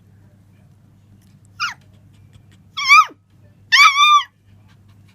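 A dog whining: three short, high-pitched cries falling in pitch. The first comes about one and a half seconds in, the second about three seconds in, and a longer, two-part whine about four seconds in.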